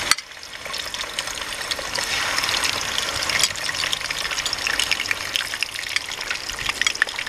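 Milkfish fillets frying in hot oil in a pan: steady sizzling with dense spattering crackles. A single sharp click right at the start.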